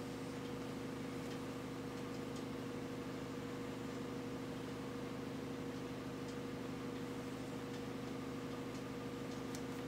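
Steady low room hum at two constant pitches, with a few faint scattered clicks.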